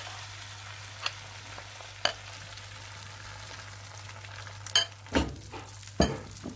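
Omelette mixture of beaten egg and chopped vegetables sizzling in hot oil in a non-stick frying pan, with about six sharp clinks of a metal spoon as it is scraped in and spread, three of them close together near the end.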